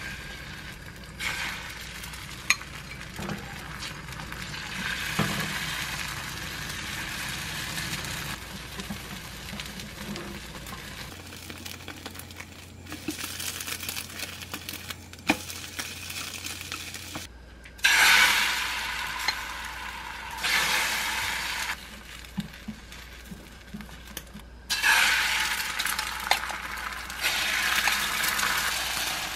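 Beaten egg sizzling in hot oil in a frying pan, with a few light taps of chopsticks against the pan. The sizzle jumps suddenly louder twice, in the second half, as fresh egg hits the hot pan.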